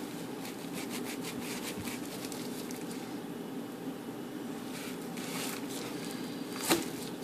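Knife slicing through the skin and fat of a raw pork picnic roast: faint scraping strokes, with one sharper click near the end, over a steady background hum.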